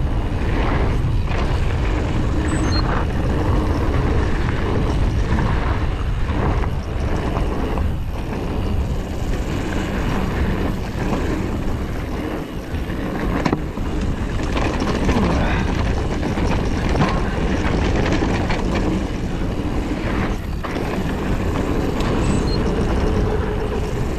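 Mountain bike riding fast downhill over gravel and rocks: wind buffeting the camera microphone and tyres crunching, with frequent rattles and knocks from the bike over the bumps.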